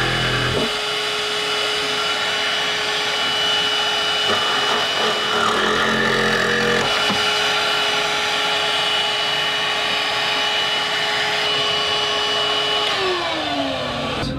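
DeWalt cordless vacuum running steadily with a hose, sucking up fiberglass dust, a constant rushing hum with a steady whine. Near the end it is switched off and the whine falls as the motor spins down.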